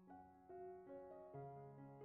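Faint background music: a few held notes, changing about every half second.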